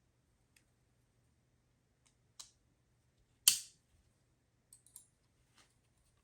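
Scattered small clicks and taps as plastic RC bumper parts and a hex driver are handled while small screws are started into a plastic cross brace. One sharper click about three and a half seconds in is the loudest, over a faint steady hum.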